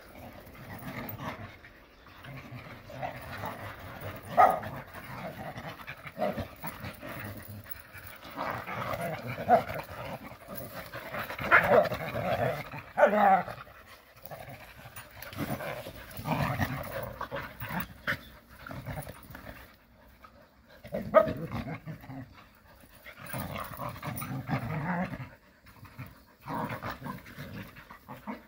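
Several Jindo dogs play-fighting, growling and panting in irregular rough bursts, with a few sharper, louder cries.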